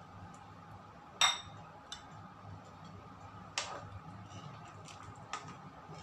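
A few sharp clinks of a metal utensil against a cooking pot, the loudest and most ringing about a second in, then three lighter ones. Under them runs a faint steady hum.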